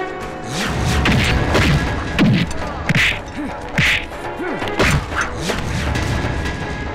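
Film fight sound effects: a quick run of about half a dozen dubbed punches and whacks, each with a short swish, during a fistfight, over background music.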